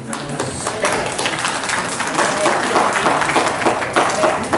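Spectators applauding with many hands clapping, the clapping growing louder about two seconds in.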